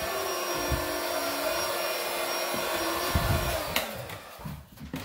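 A steady whir from an electric motor-driven appliance, cut off with a click just under four seconds in, then dying away.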